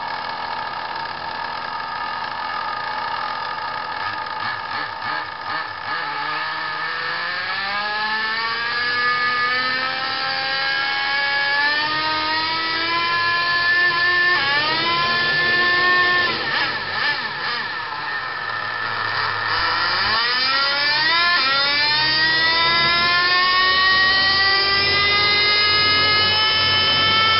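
Radio-controlled Skyline R32 GT-R model car running on a roller dyno, its drivetrain whining as the wheels spin up. The whine climbs steadily in pitch, drops back about two-thirds of the way through, then climbs again and holds high near the end.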